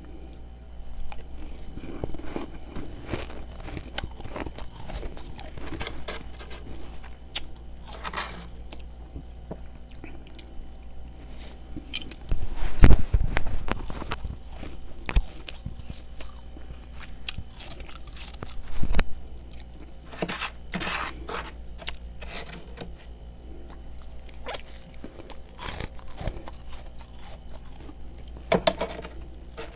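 Freezer frost being bitten and chewed, with irregular crunches. The loudest bursts come about 13 and 19 seconds in.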